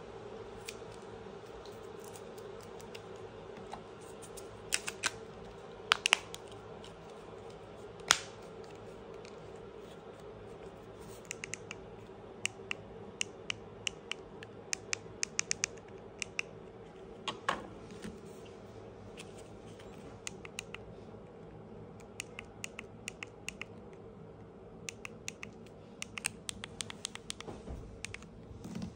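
Small plastic clicks from a 2019 Toyota Camry smart key fob: a few sharper snaps as the case is handled, then runs of small quick clicks as its buttons are pressed, testing the fob after its battery has been replaced.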